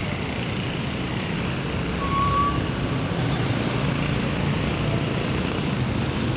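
Steady rumble of city traffic noise, with a brief faint squeak about two seconds in.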